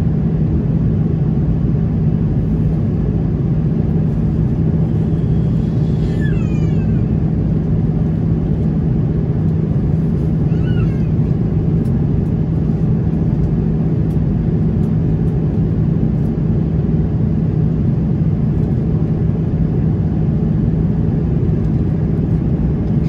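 Steady in-flight cabin noise of an Airbus A330-300 from a window seat over the wing: a loud, even rumble of airflow and its Rolls-Royce Trent 700 engines. Two brief high squeals, falling in pitch, cut through it about six and ten seconds in.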